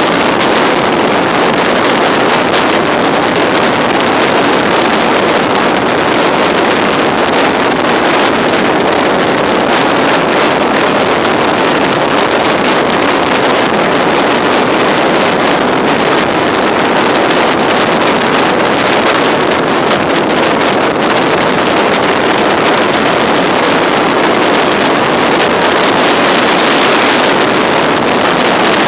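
Motorcycle cruising at about 100 km/h, heard from the rider's position. A steady, loud rush of wind on the microphone is mixed with engine and road noise.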